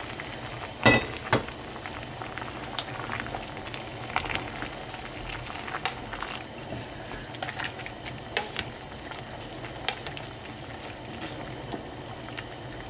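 A pot of doenjang stew bubbling at a boil, with many scattered small pops and a knock about a second in.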